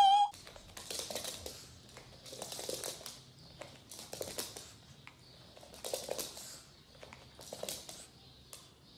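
Soft rustling and scuffing noises in five short bursts, about one and a half seconds apart.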